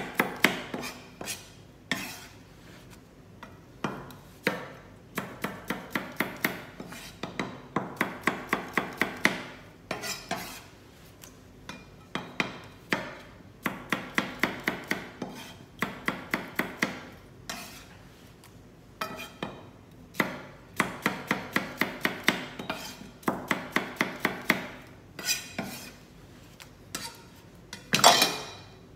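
Chef's knife slicing radishes on a plastic cutting board: quick runs of crisp chopping strokes, a few a second, with short pauses between runs. Near the end comes a louder scrape as the blade is swept flat across the board.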